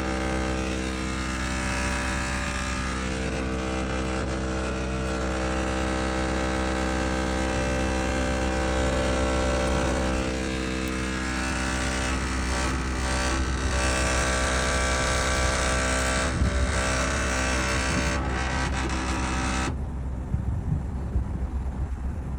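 Air conditioner making an abnormal steady, many-toned hum over a low rumble; the hum cuts off suddenly about twenty seconds in, leaving the rumble.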